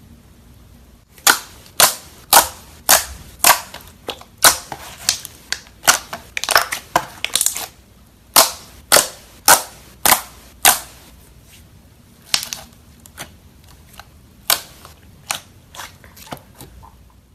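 Glossy green slime pressed and folded by hand, giving loud sharp pops and clicks of trapped air. They start about a second in, come about two a second with a dense flurry in the middle, then grow sparser and fainter.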